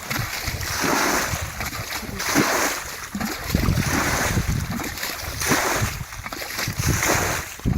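Water splashing and sloshing in repeated washes about once a second, over a low rumble of wind on the microphone.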